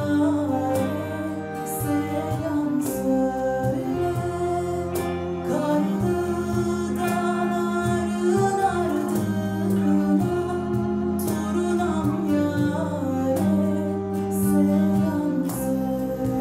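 A woman singing a song into a microphone, accompanied by cello and electric bass guitar.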